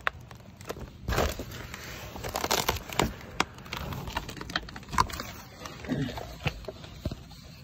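Handling noise of a person getting under a car: irregular rustling and crinkling with several sharp knocks and clicks, busiest about two to three seconds in.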